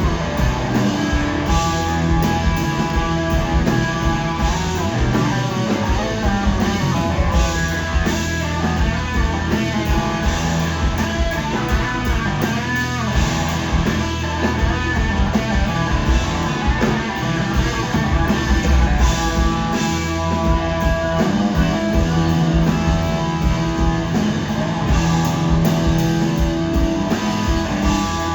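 Live rock band playing an instrumental passage without vocals, electric guitar out front over drums.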